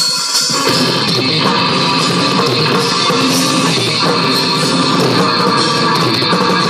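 Live rock band playing through a large outdoor PA: electric guitars and a drum kit in the opening bars of a song, with the full band coming in under a second in.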